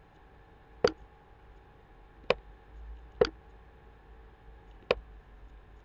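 Computer mouse clicking: four single sharp clicks spaced a second or more apart, over a faint steady hum.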